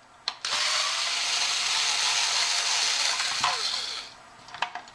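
Cordless power screwdriver running for about three and a half seconds, backing out the transformer mounting screws of a clock radio, then winding down, followed by a few light clicks.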